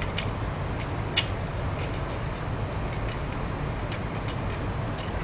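A person eating: chewing with a scattering of short, sharp clicks from mouth and chopsticks, the sharpest about a second in, over a steady low hum.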